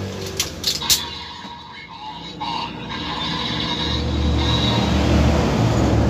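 DX Claw Raise Buckle toy: a few sharp plastic clicks as it is flipped over by hand. Then its electronic sound effects play through its small speaker, swelling from about halfway into a loud, low drone.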